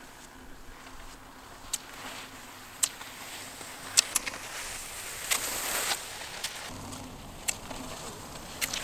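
Skate-skiing on hard-packed snow: the skis hiss and scrape across the snow, louder for a few seconds in the middle, and sharp clicks come every second or so as the poles strike the snow.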